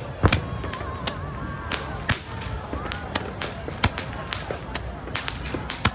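Fireworks going off: a rapid, irregular string of sharp cracks and pops, the loudest bang a fraction of a second in.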